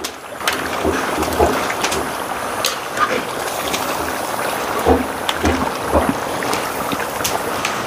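Pieces of pork cooking in a large pan of lard over a wood fire, a steady bubbling sizzle with scattered pops, while the pan is stirred with a long utensil.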